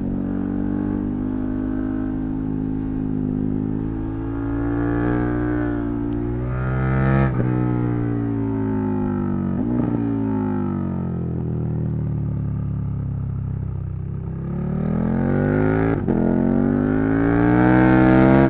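KTM 1290 Super Duke R's V-twin engine under way: the revs climb for the first seven seconds or so, cut off sharply, then fall away for several seconds before climbing again near the end. There are a few short, sharp breaks in the note along the way.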